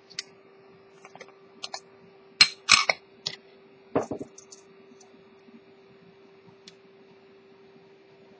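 Steel watchmaker's tweezers clicking and tapping against a glass parts dish and small metal watch parts as a wheel is picked up: a scatter of sharp clicks, loudest about two and a half seconds in, then a duller knock about four seconds in. A faint steady hum runs underneath.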